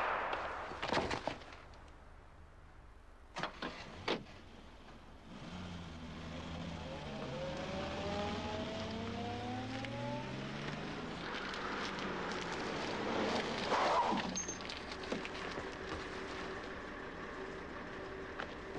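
A few sharp knocks, then a car engine running and pulling away, its pitch rising as it accelerates.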